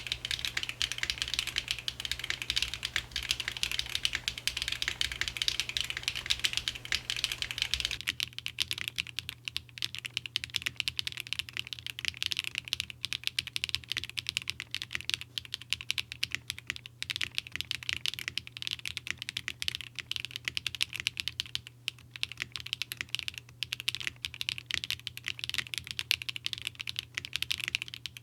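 Zoom75 mechanical keyboard with SWK Catmint switches, polycarbonate plate and only the battery foam, typed on steadily in a fast, continuous stream of keystrokes.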